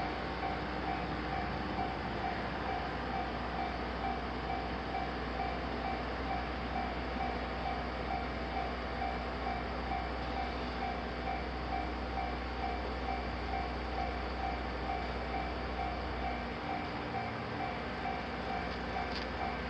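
Japanese railroad crossing's electronic warning bell ringing steadily, about two strokes a second. Beneath it a low rumble runs until it drops away about three seconds before the end.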